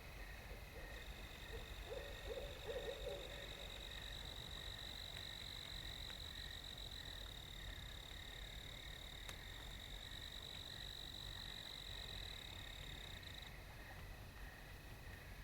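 Barred owl hooting faintly in the distance, a short run of low hoots about two seconds in. Night insects trill steadily at a high pitch behind it.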